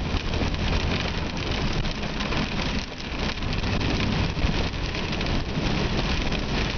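Heavy rain hitting a moving car's windshield and roof, heard inside the cabin over the steady low rumble of the engine and tyres on the wet highway.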